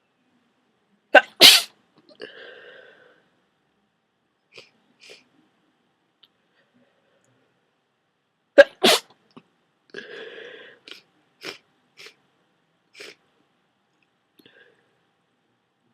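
A person with a head cold sneezing hard twice, about seven seconds apart. Each sneeze is a sharp catch followed at once by the explosive burst, then a breathy trailing sound and a few brief, faint noises.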